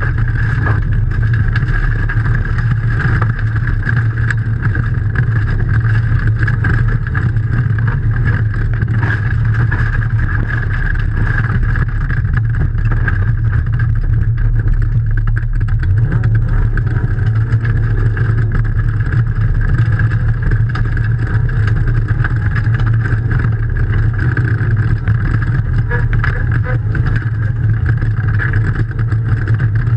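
Rally car's engine running hard, heard from inside the cabin, with loose gravel ticking against the car.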